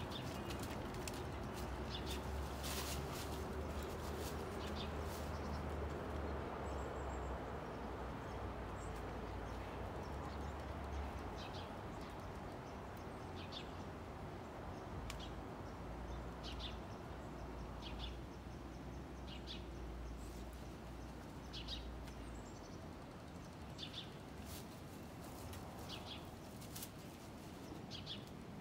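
A dog playing in dry fallen leaves, rustling and crunching them as it pounces and bites at them, over a steady low rumble. Short high chirps come every second or two in the second half.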